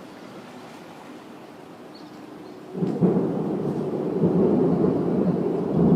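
Thunder from a close lightning bolt: a deep rolling rumble starts about halfway through and keeps building.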